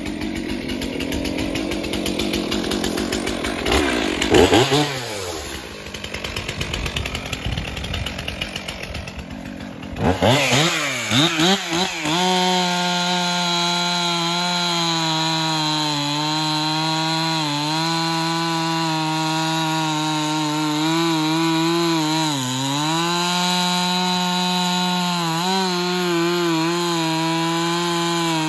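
Stihl MS362 59cc two-stroke chainsaw with a 20-inch bar and full-chisel chain. It runs at lower speed with one brief rev about four seconds in, is blipped a few times, then is held at full throttle bucking a loblolly pine log. Its steady high-revving note dips briefly several times as the chain loads up in the wood.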